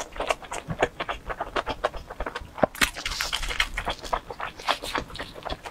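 Close-miked chewing of a mouthful of pizza: a quick, irregular run of small wet mouth clicks and lip smacks, with a short hiss about three seconds in.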